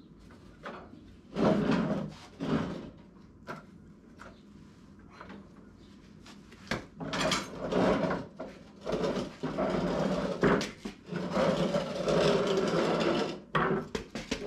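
Steel mower deck of a Toro TimeCutter zero-turn being slid out from under the mower across a concrete floor. A few knocks and clunks come first, then several seconds of scraping and rattling as the deck and its small wheels drag and roll free.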